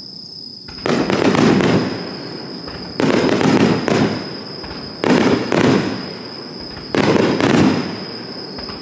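Aerial fireworks shells bursting in a finale barrage: four sudden booms about two seconds apart, each trailing off in a rumbling crackle.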